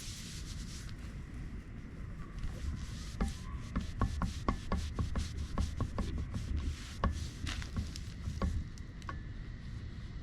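A rag rubbing and wiping along an outboard motor's drive shaft, with a run of light, irregular clicks and knocks from about three to nine seconds in.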